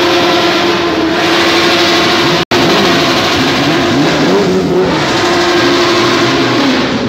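Sport motorcycle engine revved and held at a steady high pitch. About four and a half seconds in the revs drop and climb back quickly. The sound cuts out for an instant about two and a half seconds in.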